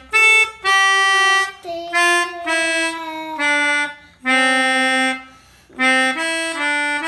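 Pianika (melodica) playing a slow tune of held reedy notes, each about half a second to a second long with short breaks between them. The pitch steps down over several notes and climbs again near the end, a try at the 'telolet' bus-horn tune.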